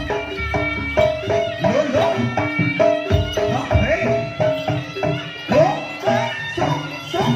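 Jaranan accompaniment music: a Javanese gamelan-style ensemble of hand drums and pitched gongs or metallophones playing a steady, driving rhythmic piece, with short repeated notes over dense drum strokes.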